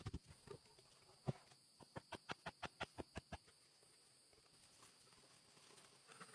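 A few scattered light knocks, then a quick even run of about ten knocks at roughly six a second, over a steady high-pitched hiss.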